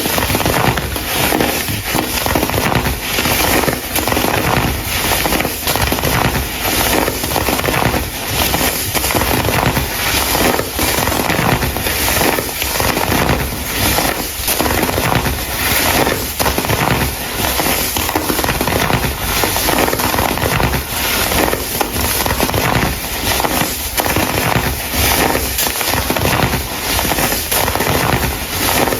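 Chunks of baking soda crumble being crushed, a dense, continuous run of crunching and crackling.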